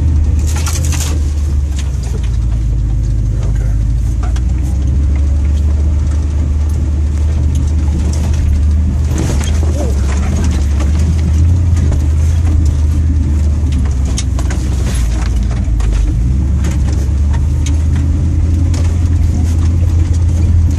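A vehicle's engine running steadily at low speed, heard from inside the cab as a constant low drone, with occasional knocks and clatters as it drives over a rough dirt trail.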